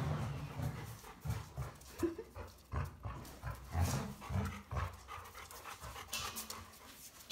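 A Labrador panting close by, in uneven breaths, with a few light clicks.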